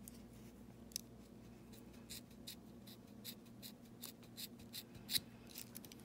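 Small Swiss Army knife scissors snipping repeatedly at nylon paracord: one click about a second in, then a quick run of small snips and clicks. The blades are dull and struggle to cut through the cord.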